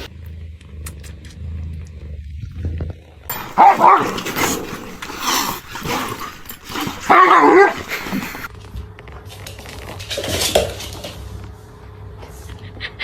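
A dog barking in loud bouts, the loudest about three and a half and seven seconds in, with a quieter call again near the end.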